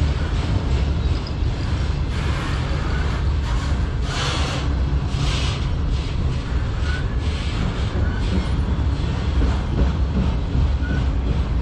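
Freight train of multi-level autorack cars rolling past close by: a steady rumble of steel wheels on rail, with repeated clacking as the wheels pass over the rail joints. The noise grows brighter for a moment about four to five seconds in.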